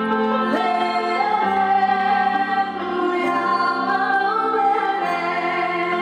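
Live female singing with long held notes and vibrato, accompanied by plucked strings: a guitar and a sape, the Sarawak boat-shaped lute.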